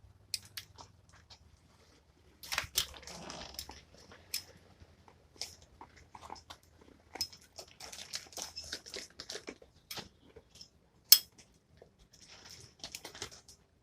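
Irregular clicks, taps and rustling as an oscillating multi-tool's attachment adapter and parts are handled and fitted, with one sharp click about eleven seconds in. The tool's motor is not running.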